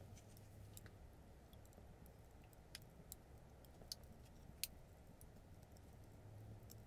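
Faint crackling of a kindling fire in a brick stove: a few scattered sharp pops and snaps from the burning wood, the loudest a little past halfway.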